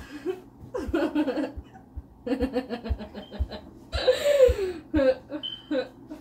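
A woman laughing in several bursts, short rapid giggles breaking into fuller laughs.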